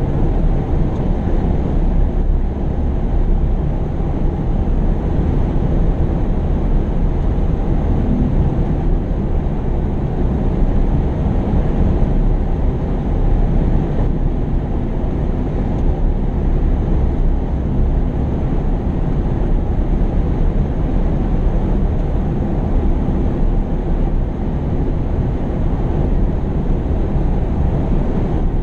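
Heavy diesel earthmoving machinery running steadily, a continuous low rumble.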